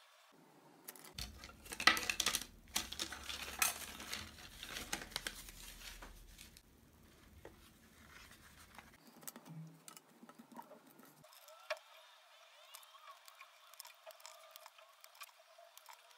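Wooden popsicle sticks clicking and clattering against each other and the tabletop as they are handled and pushed around, busiest and loudest in the first few seconds, then only scattered faint ticks.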